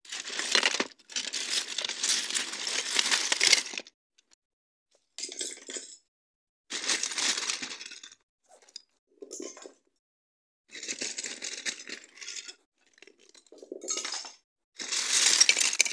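Loose plastic Lego bricks clattering and clinking as they are handled and shuffled. One long stretch of rattling for the first four seconds, then shorter bursts of about a second each with pauses between.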